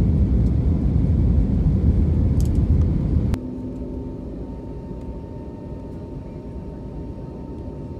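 Airliner cabin noise heard at a window seat: a loud low rumble that cuts off abruptly about three seconds in, then a quieter steady cabin hum with a faint high steady whine.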